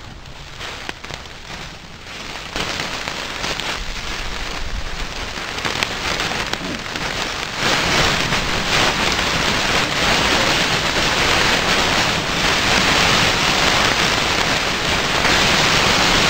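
Ground chuck burger patties sizzling and crackling on the hot grate of a Big Green Egg kamado grill over flaring flames, with the spatula lifting and flipping them. The sizzle grows louder about two and a half seconds in and again about eight seconds in, then stays loud and steady.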